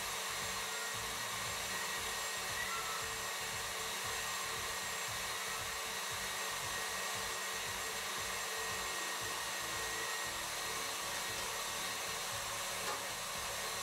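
Electric stand mixer running steadily at speed, a constant whir, whipping egg whites into meringue while hot sugar syrup is poured in.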